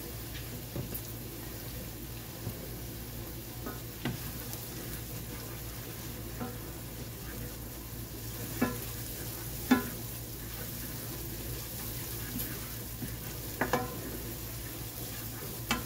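Diced bell pepper and garlic frying in olive oil in a nonstick skillet, a steady sizzle, while a slotted spoon stirs and scrapes through it. A few sharper knocks of the spoon on the pan stand out, the loudest a little over halfway through and another pair near the end.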